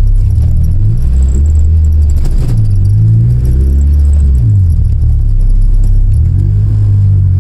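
K24-swapped 1993 Honda Civic's four-cylinder engine running with a loud, low exhaust drone, its pitch rising and falling several times as the revs change.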